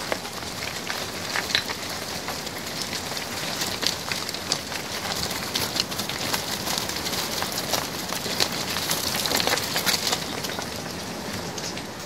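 A flock of sheep running together up a lane: a dense patter of many small hoof clicks over a rustling of wind in the trees, at its loudest about ten seconds in.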